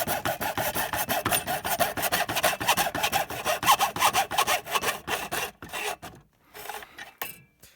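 Hand saw cutting through a router's casing: fast, even back-and-forth rasping strokes that stop about six seconds in, followed by a few last scrapes.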